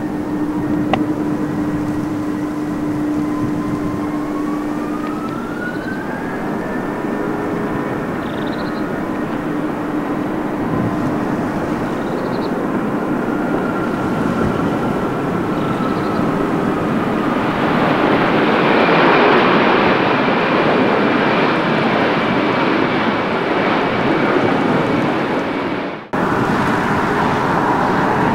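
Airbus A321-213 with CFM56 turbofans on landing approach: a steady engine whine with tones that slide slowly upward, building to a broad jet roar as the airliner passes, loudest a little past the middle. The sound breaks off abruptly near the end, and jet noise resumes just after.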